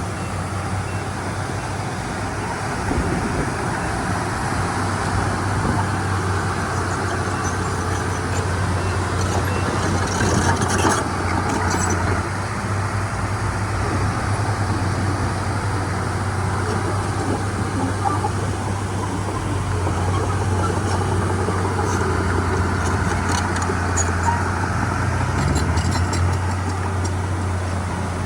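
Heavy diesel engine of earthmoving machinery running steadily at a low hum. There are a few sharp clicks about a third of the way in and again near the end, where the engine pitch briefly shifts.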